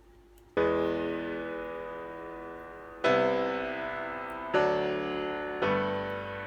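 Background piano music: after a brief near-quiet start, four chords are struck about half a second, three, four and a half and five and a half seconds in, each ringing on and slowly fading.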